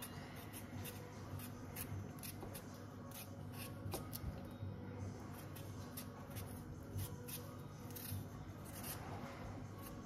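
Kitchen knife peeling a raw potato by hand: faint, irregular scraping strokes of the blade against the skin.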